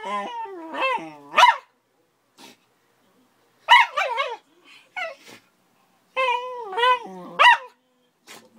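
A schnauzer and an akita–labrador puppy squabbling, with barks and growls in three bursts of rising and falling calls, each about a second and a half long, with short pauses between.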